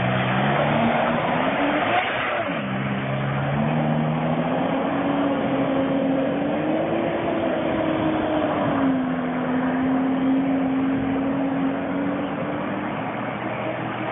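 Jet ski engine revving up as it pulls away, its pitch rising, dropping sharply about two and a half seconds in, then climbing again and holding at a steady cruising pitch.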